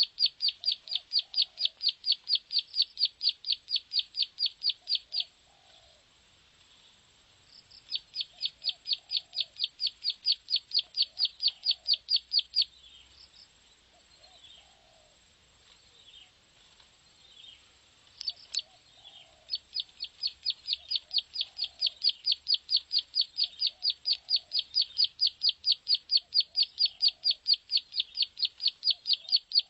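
Plain prinia song: long trains of rapid, evenly repeated high notes, about six a second, broken twice by pauses of a few seconds that hold softer scattered notes. A faint lower call repeats every second or two underneath.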